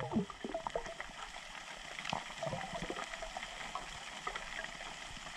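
Water bubbling and gurgling, heard underwater, with many small scattered pops and chirps.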